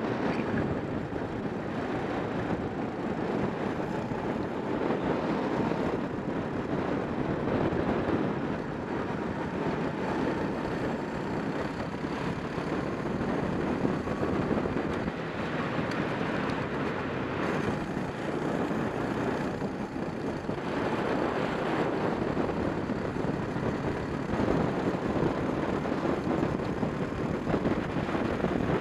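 Racing kart engine running at speed, heard from the kart's onboard camera, with wind buffeting the microphone.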